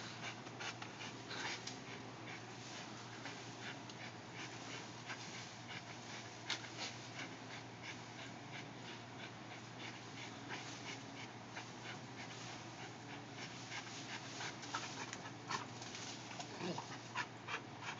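A pit bull-type dog panting as it tugs at leafy tree branches, with the leaves rustling and many short crackles from the twigs.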